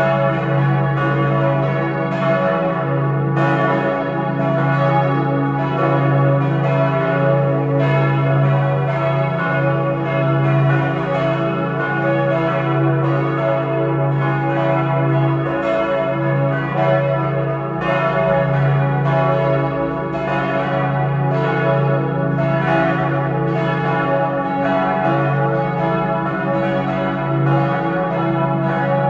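Four church bells, tuned to C-sharp, E, F-sharp and G-sharp (cis' e' fis' gis'), ringing together in a continuous peal, their strikes overlapping over a steady low hum. The peal calls the congregation to a service.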